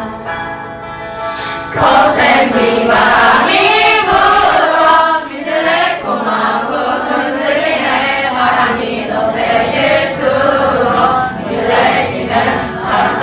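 A class of children singing a Korean song in chorus over instrumental accompaniment. The voices come in about two seconds in, after a short instrumental passage.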